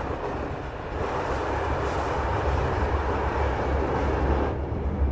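A train rumbling past: a steady noise over a deep rumble that swells and then cuts off sharply about four and a half seconds in.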